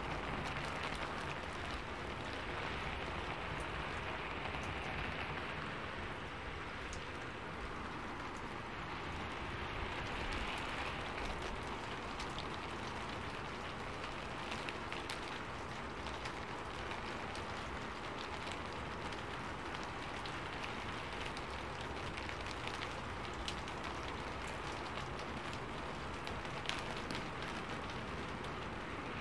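Steady rainfall, with many small sharp taps of drops landing close by.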